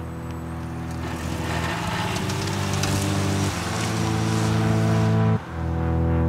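Background music: sustained chords swelling steadily louder, changing chord about three and a half seconds in and again just after five seconds, building toward a rock track.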